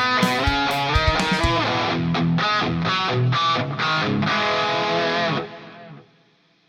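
Electric guitar playing chords, with sharp hits over the first second and a half. The last chord rings and cuts off about five and a half seconds in, fading out within half a second.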